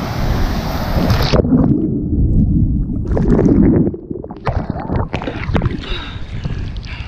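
Loud rushing wind and water noise on the camera's microphone. About a second and a half in, it turns muffled, with scattered knocks and splashy bursts.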